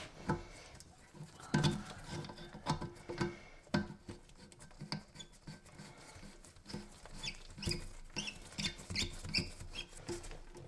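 Irregular small clicks, scrapes and taps of a gloved hand threading and hand-tightening the plastic coupling nut of a braided water supply line onto a toilet tank's fill valve shank, with a few short high squeaks in the second half.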